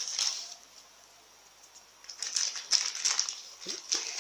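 Plastic courier mailer bag crinkling and rustling as hands pull at it to open it. The crinkling stops briefly about half a second in and resumes about two seconds in.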